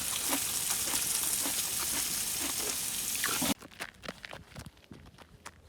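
Meat sizzling in a hot pan with small pops and crackles, cutting off abruptly about three and a half seconds in. After the cut there are only faint scattered clicks and taps.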